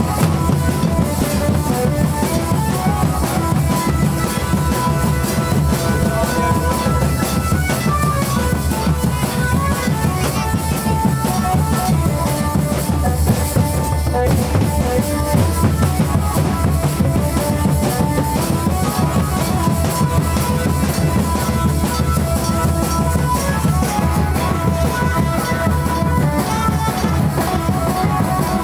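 Santhal wedding dance music: double-headed barrel drums beaten in a quick, steady rhythm, with a melody line carried over the drumming.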